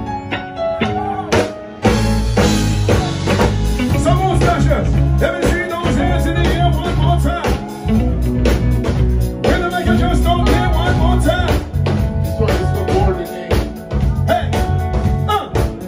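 Live reggae band playing: electric guitars, bass guitar and drum kit, with a male singer's voice through the PA over the band.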